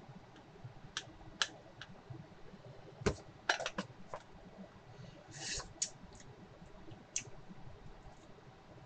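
Scattered light clicks and taps of small spice containers and their lids being handled while seasoning a pot, with a short rustle of shaking about five seconds in.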